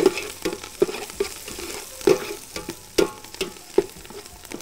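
Metal ladle stirring onions, garlic and chillies frying in oil in a large aluminium pot, knocking and scraping against the pot about two or three times a second, over a steady sizzle of hot oil.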